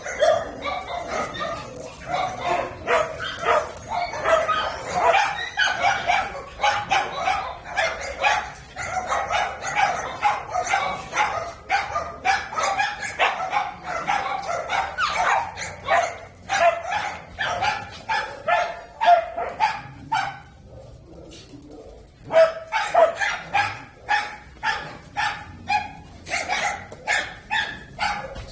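Many dogs barking over one another in a steady, continuous chorus of short barks, easing off briefly about two-thirds of the way through before picking up again.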